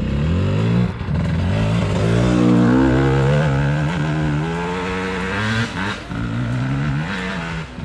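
200cc two-stroke enduro motorcycle revving hard under load up a steep climb. The engine note rises and falls over and over as the throttle is worked, with a brief drop about six seconds in.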